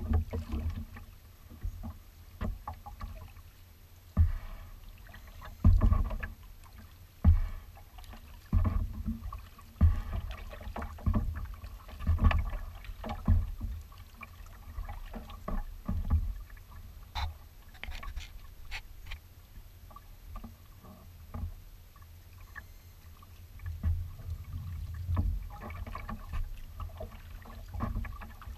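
Kayak being paddled on choppy water: paddle strokes dipping and splashing about once every second or so, with water slapping against the hull. The strokes ease off for a few seconds past the middle, then start again.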